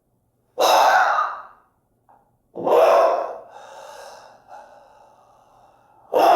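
A person's voice making three short wordless vocal sounds, with silence in between; the middle one trails off slowly.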